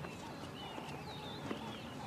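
Faint outdoor wildlife ambience: thin, high, wavering chirps over a steady hiss, with one small click about one and a half seconds in.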